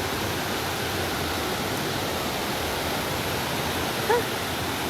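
Waterfall rushing steadily close by. A brief high squeak cuts through it about four seconds in.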